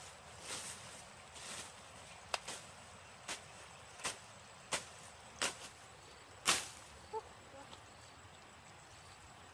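Curved machete slashing through grass and weeds, about a dozen separate swishing, chopping strokes at uneven intervals, the loudest about two-thirds of the way in.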